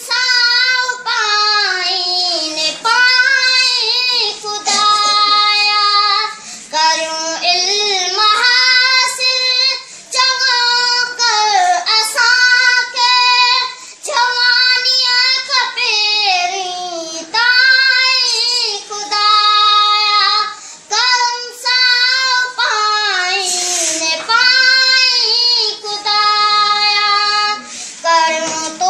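A boy singing a Sindhi devotional prayer poem (dua) solo, with no instruments, in a high voice with long held, gliding notes and short pauses for breath.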